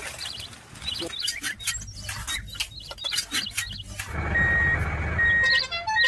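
A vehicle engine rumbles low under small bird chirps and a few knocks. About four seconds in, the engine grows louder and a reversing alarm starts beeping at a steady pitch, roughly one beep a second.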